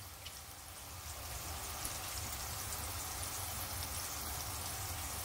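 Pot of chicken ginger soup heating on a gas burner: a steady bubbling hiss over a low hum, a little louder after the first second.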